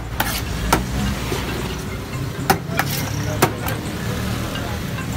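About five sharp clinks of a steel serving spoon against a large steel pulao tray, spread over the first three and a half seconds, over a steady low hum of street traffic.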